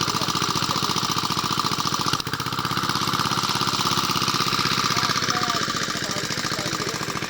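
A small engine running steadily with a fast, even chugging pulse, dipping briefly about two seconds in.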